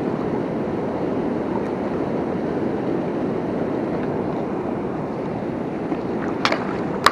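Steady rush of river water pouring over a low-head dam and churning through the rapids below it. Two brief clicks sound near the end.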